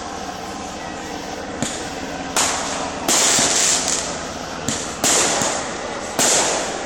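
Fireworks going off: a few faint pops, then from about two seconds in four loud sudden bursts, each with a hissing crackle that trails away.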